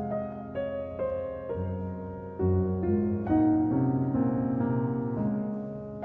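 Background music: a slow, gentle piano melody with notes struck about one or two a second over low bass notes.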